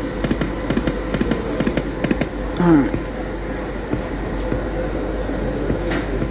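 Poker machine gaming-room sound: a steady hum under a scatter of short clicks, with a brief falling tone about two and a half seconds in.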